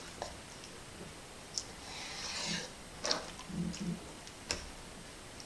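Kitchen knife cutting codling fillets into chunks on a wooden chopping board: a few sharp knocks of the blade meeting the board, about a second and a half apart.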